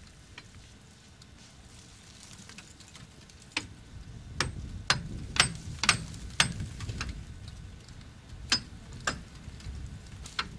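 About ten sharp, irregularly spaced knocks, beginning about three and a half seconds in, over a low rumble.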